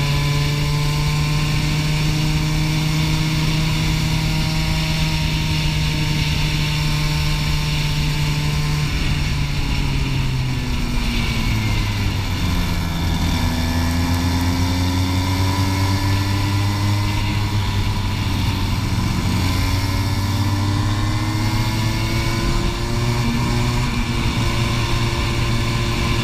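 Racing kart engine heard onboard, held at steady high revs along the straight. About ten seconds in the revs drop away, then climb again from about thirteen seconds through the corner, with a second, shorter dip and rise near twenty seconds.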